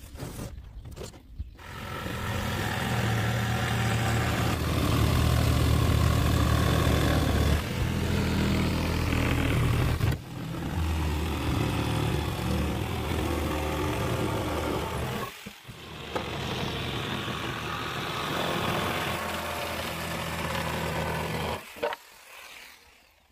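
Corded jigsaw running and cutting through wooden boards. It cuts in three long runs, with short stops about ten and fifteen seconds in, and shuts off shortly before the end. A few knocks come before it starts.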